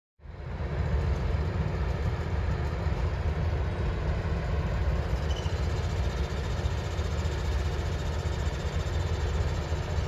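Diesel-hauled passenger train passing: a steady low rumble of the locomotive engines and rolling cars.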